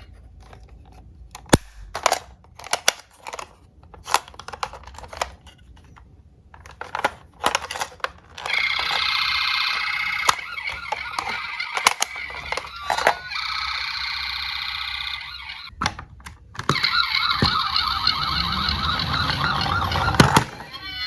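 Scattered clicks and knocks of toy cars being handled, then a toy emergency vehicle's electronic siren sounding in stretches from about 8 seconds in, loudest near the end.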